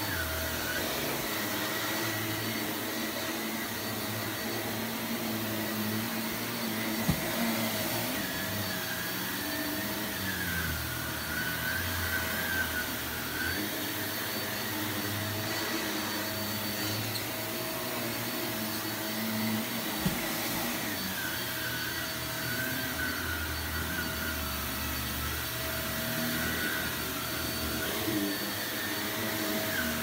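Bagless upright vacuum cleaner running steadily on a rug, its motor whine wavering up and down as the head is pushed back and forth. Two brief clicks, about seven and twenty seconds in.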